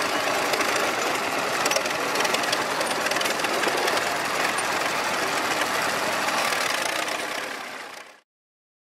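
Engines of old crawler tractors, a Cletrac among them, running as they drive past, a dense clatter of engine noise. It fades out and stops about eight seconds in.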